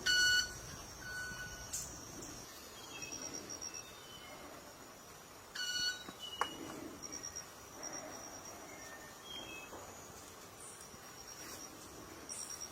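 Club-winged manakin sounding its wings twice, about six seconds apart: a short, ringing note with overtones, made by its specialised wing feathers as a courtship display to a female. A steady high insect tone and scattered bird chirps run beneath.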